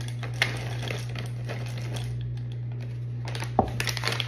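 White chocolate wafers pouring from a plastic bag into a glass measuring cup, clattering in a run of small irregular clicks, with the bag crinkling. There is a few louder knocks near the end, over a steady low hum.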